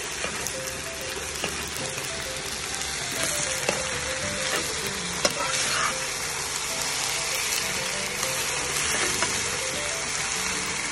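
Rice sizzling in a hot metal wok as a metal spatula stirs and scrapes through it, with a few sharp clicks of the spatula against the pan.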